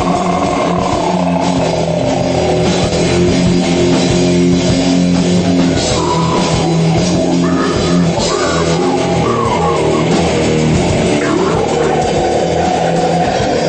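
Hardcore crust punk / grind metal recording: electric guitar and drum kit playing loudly.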